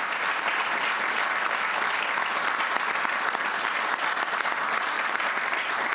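Audience applauding: many hands clapping in a steady, dense patter that holds at an even level throughout.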